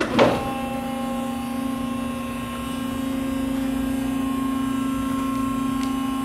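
AC electric motor and hydraulic pump of a mobile scissor lift table starting abruptly with a brief loud surge, then running with a steady hum as it drives the cylinders to raise the table.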